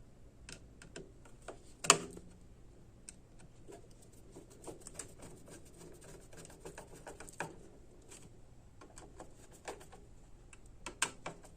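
Scattered small clicks and taps of screws being driven and the metal parts of a power strip's housing being handled and fitted together, with one sharper knock about two seconds in.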